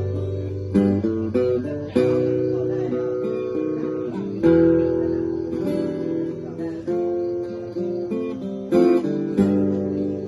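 Acoustic guitar playing an instrumental passage, chords struck and left to ring, changing about every second.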